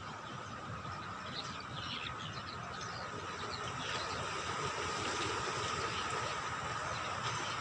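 Outdoor ambience: a steady high-pitched hum over a low rumble, with a few faint bird calls in the first half.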